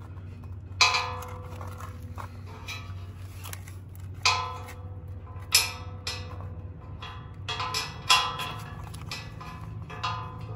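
A steel bolt and wire knocking against the inside of a steel winch bumper as they are fished through a mounting hole: about seven irregular metallic clinks, each ringing briefly, the loudest about a second in.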